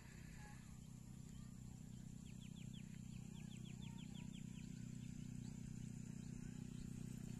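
A steady low engine hum that grows slightly louder. About two seconds in, a bird gives a quick run of about a dozen short, high chirps lasting a couple of seconds.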